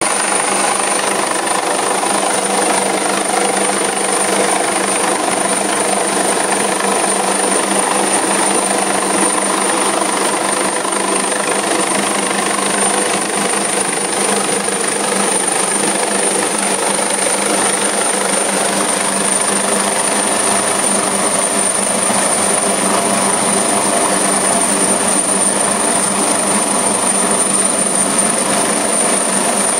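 AgustaWestland AW139 twin-turbine rescue helicopter hovering with its winch cable down: a loud, steady rotor and engine sound with a constant high turbine whine.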